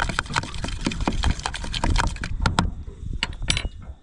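A metal fork rapidly clicking and scraping against a plastic container while stirring soy sauce and wasabi together. The clicks thin out to a few separate taps near the end.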